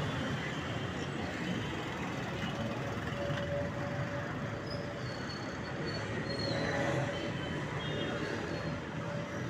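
Steady traffic noise of a busy city street, with a faint held whine and a few short high squeaks.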